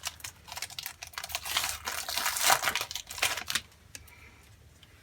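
Wrapper of a trading card pack crinkling and tearing as it is ripped open, stopping about three and a half seconds in.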